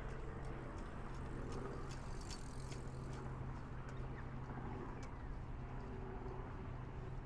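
A steady low motor hum, with a run of short footstep ticks on the walkway that is strongest early on and thins out after about three seconds.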